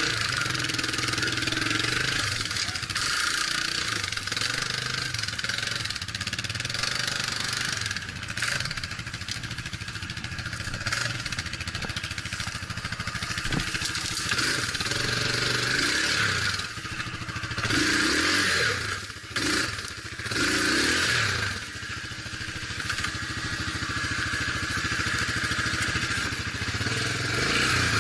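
Off-road vehicle engine running while driving over rough ground, with a constant rush of wind and road noise. About two-thirds of the way through, the engine revs up and down a few times.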